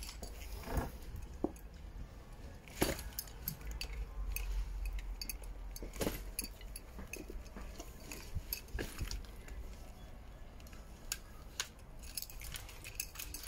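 A pushchair being pushed over paving slabs, rattling with scattered light clicks and clinks over a low rumble.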